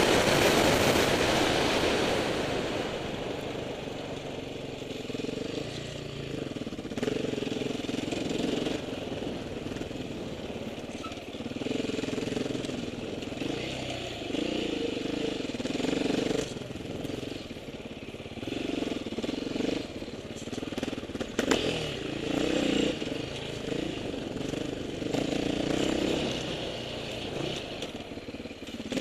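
Off-road motorcycle engine running and revving up and down repeatedly while riding, louder at first, with one sharp knock about three-quarters of the way in.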